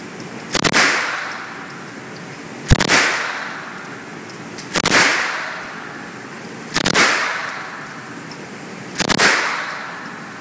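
9mm Uzi submachine gun fired on full auto in short bursts of about three rounds, five bursts roughly two seconds apart. Each burst rings out in the long echo of an indoor shooting range.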